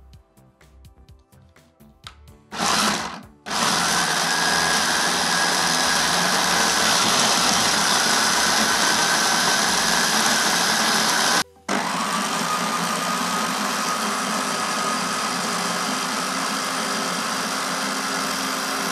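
Small electric mini chopper (Izzy) chopping fresh tribulus leaves: a short pulse, then the motor runs steadily with a high whine for about eight seconds, stops briefly, and runs again for about seven seconds.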